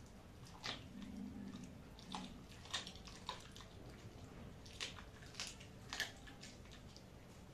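Siberian husky chewing a piece of raw meat on the bone: irregular wet crunches and cracks of the bone between its teeth, several in quick succession.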